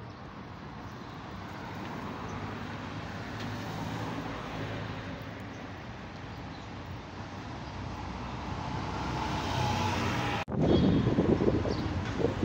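Street traffic: cars and a city bus running past, growing louder over several seconds. About ten seconds in, the sound breaks off abruptly and a louder, rougher noise follows.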